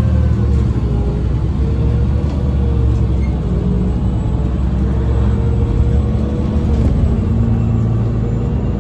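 Irisbus Agora Line city bus with a Voith automatic gearbox under way, heard from inside the passenger cabin: a steady low diesel drone with a thin whine that wavers slightly in pitch as the bus drives along.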